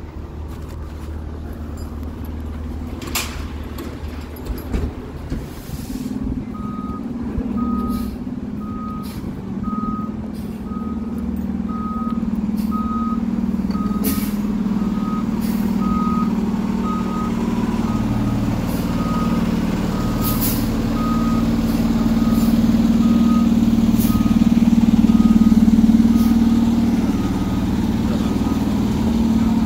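A fire engine backing up, its reversing alarm beeping steadily at a little over one beep a second over the sound of its engine running. The beeping starts several seconds in, and the engine grows louder as the truck backs closer.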